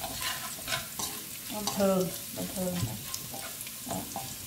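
Minced garlic sizzling in hot cooking oil in a metal wok, stirred with chopsticks that click and scrape against the pan, the garlic frying until just golden.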